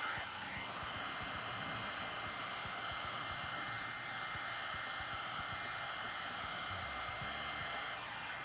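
Handheld electric heat gun blowing steadily, an even fan-and-air hiss with a faint high whine, as it is swept over windshield protection film to heat and shrink it.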